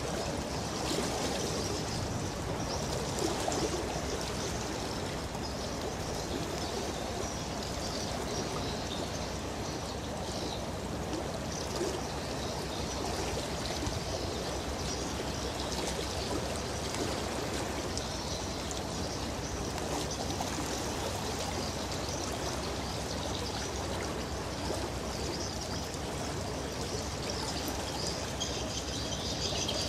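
Steady rushing and trickling of river water, an even wash with no distinct splashes.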